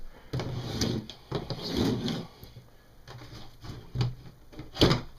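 Things being moved around and set down on a cluttered shelf: irregular shuffling and knocking, with one sharp knock near the end the loudest.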